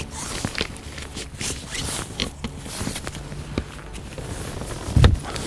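Rustling and scraping of a bivvy shelter's fabric as its front poles are flexed and clicked into the plastic moulded blocks, with irregular small clicks and a heavier thump near the end.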